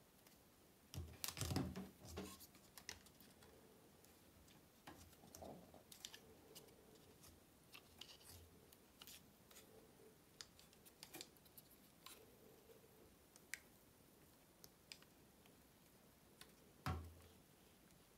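Faint handling noise of a plastic webcam and its folding clip mount: scattered small clicks and rubs, with a louder clatter about a second in and one sharp knock near the end.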